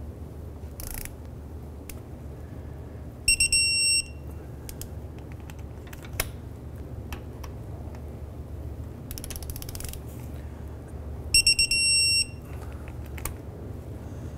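Digital torque wrench beeping as a driveshaft flange bolt reaches its set torque of 22 ft-lb: a few quick high beeps running into a held tone, twice, about three seconds in and again about eleven seconds in. Light ratchet clicks come between them as the wrench is worked.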